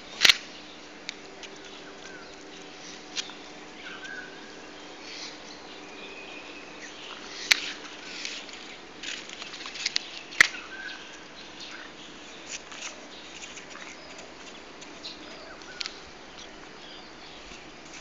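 Dogs play-fighting: scattered scuffling clicks and knocks, with three sharp knocks near the start, about seven and a half seconds in and about ten seconds in. A few short, faint rising chirps come through now and then.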